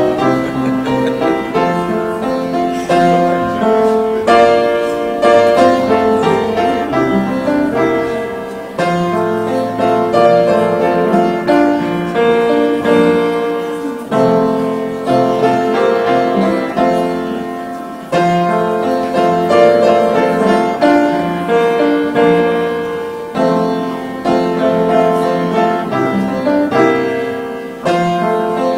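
Piano playing a slow piece: chords are struck every few seconds and left to ring and fade.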